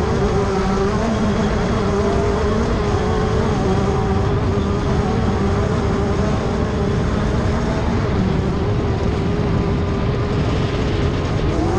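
Class 10 off-road race car engine running hard at steady high revs over a constant rush of noise, the revs climbing right at the end.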